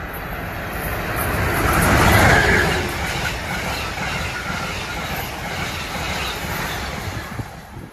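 Amtrak passenger train of Amfleet coaches passing through the station at speed: the rush of wheels on rail builds to its loudest about two seconds in as the front of the train goes by, then holds as a steady rolling noise from the passing coaches.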